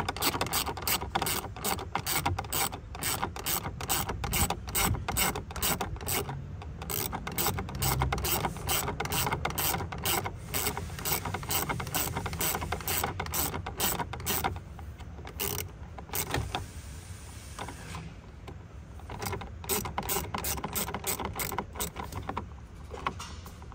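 Hand ratchet wrench clicking in quick, even runs as bolts are undone, with a pause a little past halfway.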